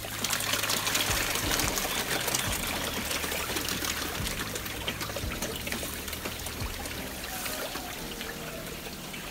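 Tilapia splashing and snapping at the surface of a tightly stocked tank as feed pellets go in, a dense spatter that starts suddenly and slowly dies away, over a steady trickle of circulating water.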